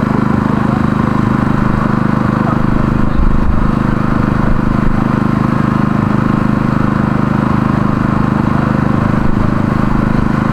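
A motor running steadily at an even speed, with a low hum.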